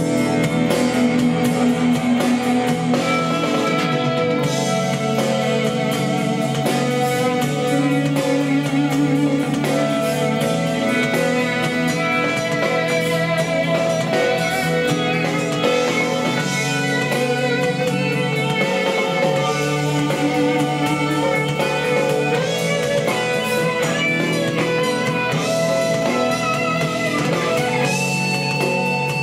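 Guitar music with drums played through a pair of small homemade speakers driven by a DIY USB DAC and amplifier, with little deep bass.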